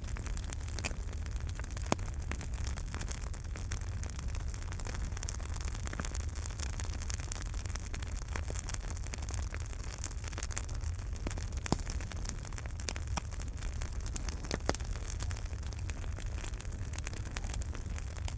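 Wood fire burning in a fireplace: a steady low rumble and hiss of the flames with frequent small crackles and a few sharper pops, one loud near the middle.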